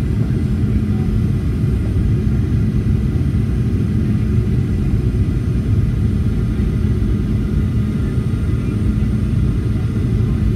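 Steady low rumble of a Boeing 737-800 in flight, heard inside the cabin: the CFM56-7B jet engines and the airflow over the fuselage.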